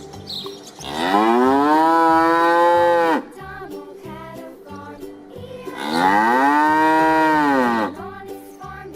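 A cow mooing twice, two long calls of about two seconds each that rise in pitch, hold, then drop at the end, over background music.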